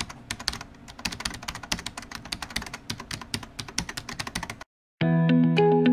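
Fast, irregular clicking like typing on a computer keyboard, stopping abruptly about four and a half seconds in. After a brief silence, music with held, steady notes starts near the end.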